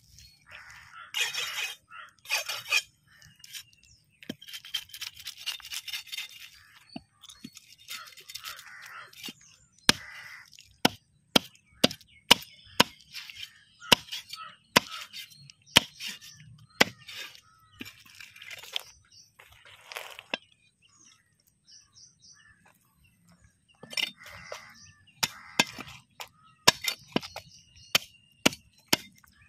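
A large curved knife chopping fish on a wooden log block. The first half holds stretches of scraping noise, then sharp chops land about once or twice a second as the blade strikes through into the wood.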